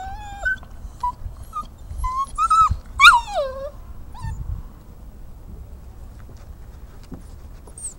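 Great Dane puppy whimpering: a string of short, high-pitched whines over the first few seconds, the loudest a longer whine that falls in pitch about three seconds in.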